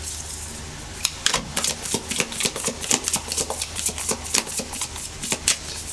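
A tarot deck being shuffled by hand: a quick, irregular run of card flicks and snaps starting about a second in.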